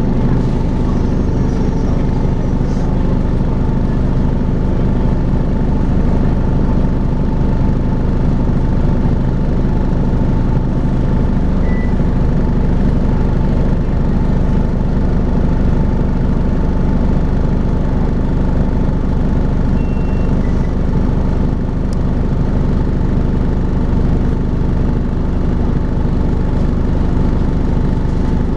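Volvo B5LH hybrid double-decker bus making its steady vacuum-cleaner-like 'hoovering' drone, a constant hum with several steady tones and no change in pitch.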